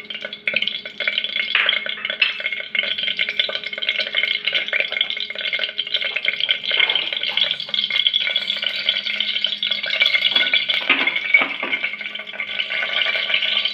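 Whole spices (cinnamon, cloves, cardamom and bay leaf) sizzling and crackling in hot oil in an aluminium pressure cooker, a dense patter of tiny pops, over a faint steady hum.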